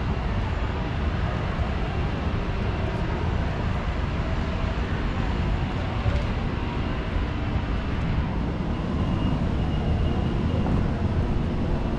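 Steady low rumble of outdoor urban background noise picked up while walking.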